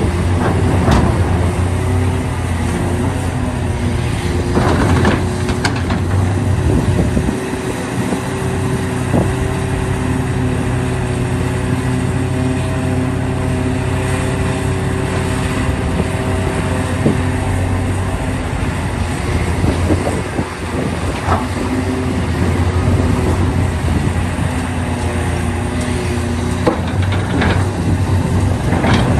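Large hydraulic excavator working: the diesel engine runs steadily under load, its note shifting a few times, with sharp clanks and knocks from the digging now and then.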